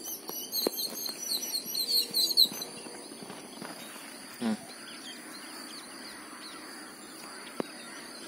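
Small birds chirping in quick runs of short notes during the first couple of seconds, over a steady high insect drone. A few faint clicks, and one short low call about four and a half seconds in.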